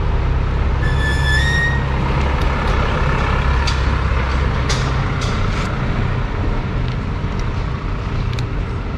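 A heavy road vehicle rumbling past, with a brief high brake squeal about a second in and a few sharp clicks a little later; the rumble fades after about four seconds.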